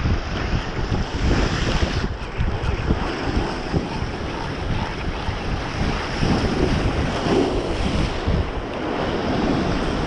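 Ocean waves surging and breaking in foam against a rock ledge, with strong wind buffeting the microphone in a constant low rumble.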